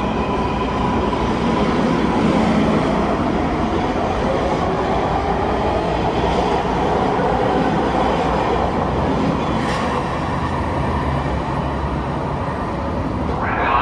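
MARTA heavy-rail train pulling out of the station and running away along the track: a steady rumble and clatter of steel wheels on rail. A high motor whine fades out about a second or two in.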